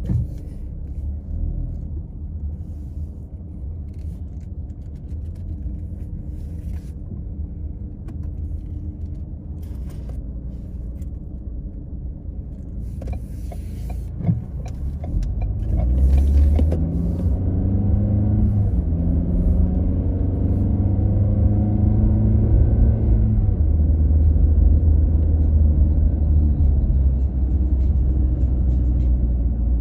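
Car engine and road rumble heard from inside the cabin, steady at low speed at first, then louder about halfway through as the car accelerates, the engine note climbing and dropping back in steps before settling into a steady cruise.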